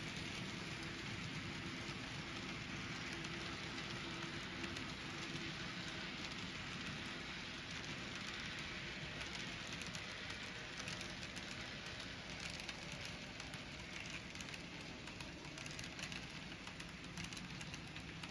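N scale model freight cars rolling past on the track: a steady rattle and hiss of small metal wheels on rail, with many fine clicks.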